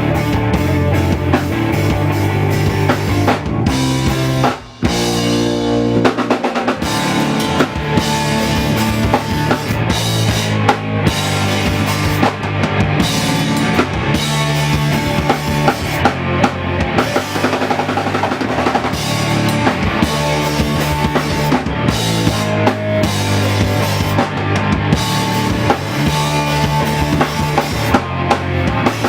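A live band playing, with a driving drum kit of kick and snare over bass and guitar. The drums and bass drop out briefly about five seconds in, leaving a held chord, before the full band comes back in.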